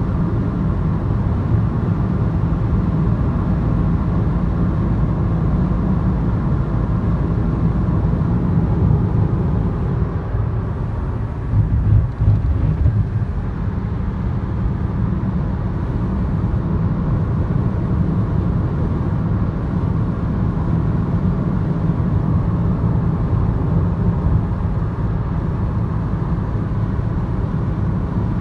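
Steady in-cabin drone of a 2017 Audi A3 2.0T cruising at highway speed: low road, tyre and engine noise at an even pitch, with no revving. A brief louder rumble comes about twelve seconds in.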